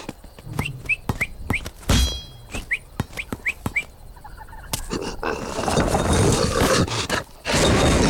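Cartoon sound effects: a run of light clicks and knocks with short rising chirps between them. Then a noisy rumble builds and turns loud near the end as the boulder rolls onto the lion and pins him.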